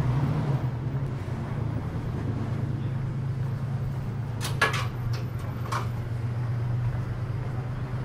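Roadside traffic: a steady low engine hum from vehicles on the street. A quick run of sharp clicks and clatter comes about four and a half seconds in and lasts about a second.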